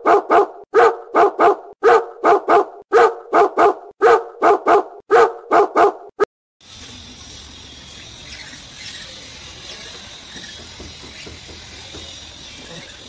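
A dog barking loudly and repeatedly in quick runs of two or three barks, which cut off sharply about six seconds in. A faint steady background hiss follows.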